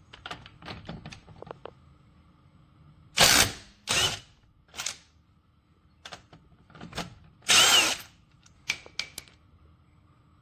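Ryobi ONE+ HP 18V brushless cordless impact wrench run briefly with no load, in several short trigger pulls that spin the motor up and down, with clicks of the tool being handled between them.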